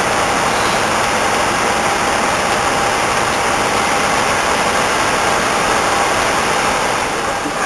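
Steady rushing background noise of an Airbus A319 flight deck in flight, with a faint steady whine running through it.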